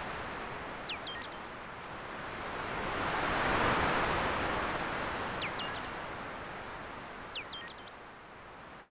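Surf washing onto a sandy beach, a steady rush that swells and fades once. A bird gives a short whistled call three times: about a second in, midway, and near the end.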